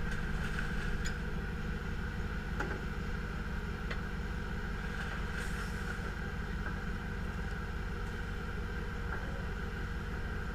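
An off-road 4x4's engine running steadily at low revs, with a few faint clicks over it.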